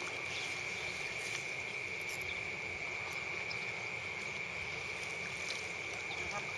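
Steady high-pitched insect drone, with a few faint clicks.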